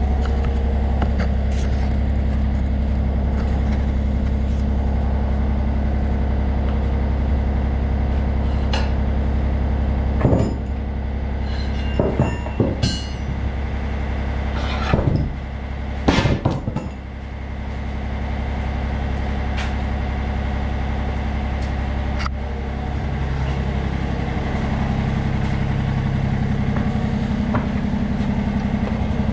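Yanmar mini-excavator's diesel engine idling steadily, with a handful of sharp metal clanks around the middle as the steel bucket thumb is handled. Near the end the engine note shifts as the hydraulic controls are worked.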